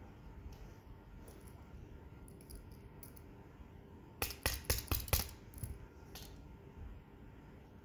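Small hammer tapping the metal encoder bracket of a wireless mouse's scroll wheel, crimping it to tighten a wheel that has worked loose. A quick run of about six light metallic taps a little over four seconds in, then two softer ones.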